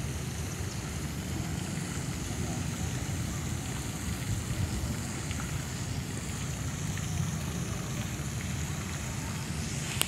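Fountain jets splashing steadily into a pond, a continuous hiss of falling water, with a low rumble of wind on the microphone.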